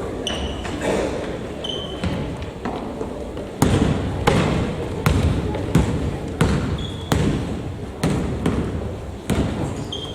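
A basketball being dribbled on the court: sharp bounces, about one every 0.7 seconds, start about three and a half seconds in and keep going. A few short, high squeaks come in between.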